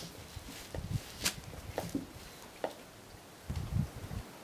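Faint scattered clicks and light knocks from a shooter settling behind a scoped bolt-action rifle on a bench rest while aiming. A brief low rumble comes near the end.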